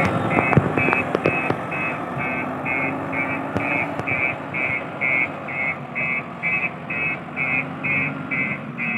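JCB 3DX backhoe loader's reversing alarm beeping about twice a second over its diesel engine running, with a few sharp knocks about half a second to a second and a half in.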